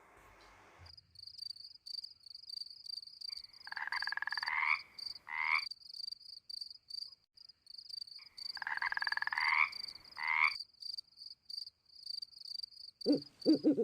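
Frogs croaking over crickets chirping steadily. A high, rapid chirping goes on throughout. Two rattling croak calls, each followed by a short second croak, come about five seconds apart, and a few louder, lower croaks come near the end.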